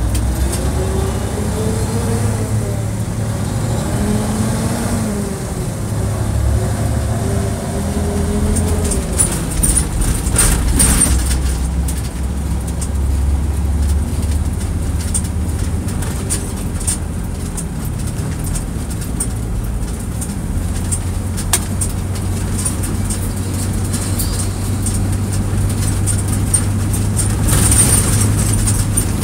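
Car engine and road noise heard inside the cabin while driving in town. The engine pitch rises and falls through the first several seconds, and there are a few brief knocks about ten seconds in.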